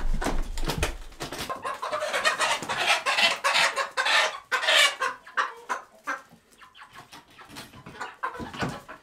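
Young chickens (pullets and cockerels) clucking and squawking as they are caught by hand and put into a plastic pet carrier, with knocks and rustling throughout. The squawking is loudest about two to five seconds in, then dies down.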